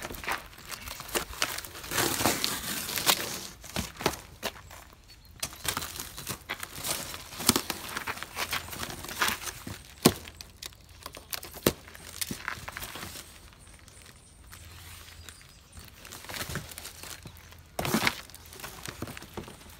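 Cardboard packaging and plastic stretch wrap being torn, cut and crumpled by hand, in irregular rustling bursts with sharp crackles and snaps.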